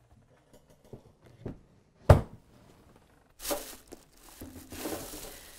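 A spiral-bound binder cookbook set down on a cloth-covered table: a few light knocks, then one sharp thump about two seconds in. After that, crinkling and rustling of a plastic shopping bag as the next book is pulled out.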